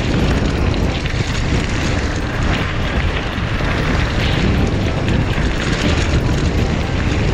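Wind rushing and buffeting over a GoPro action camera's microphone on a fast mountain-bike descent, with the rumble of the bike's tyres on the track. It is loud and steady throughout.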